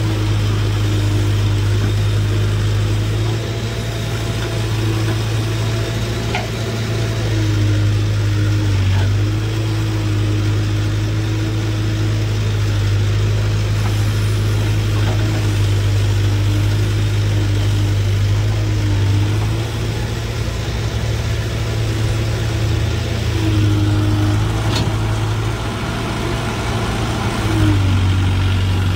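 Case 770 backhoe loader's diesel engine running steadily close by, its pitch sagging briefly several times as the hydraulics work the digging arm.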